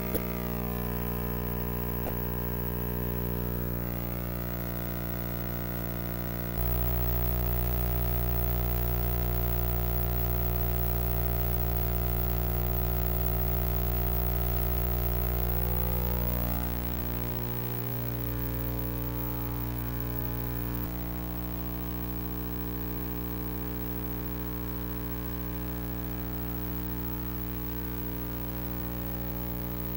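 Background music of held, sustained chords that change a few times, with slow gliding pitch sweeps near the start and again a little past the middle.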